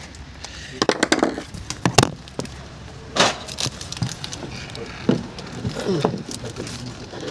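Scattered clicks, knocks and sharp taps of hands working on a PVC window sash's hinge fittings, the loudest about two and three seconds in, with brief mumbled voices.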